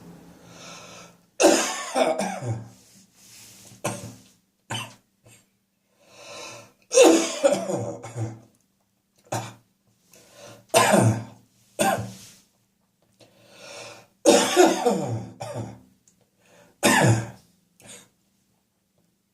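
Chesty coughing from catarrh: repeated bouts of harsh coughs, several in a row, with breaths drawn between the bouts.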